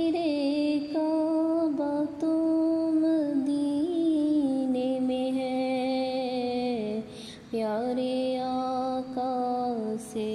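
A woman singing a naat, an Urdu devotional song, in long held notes that step slowly up and down in pitch.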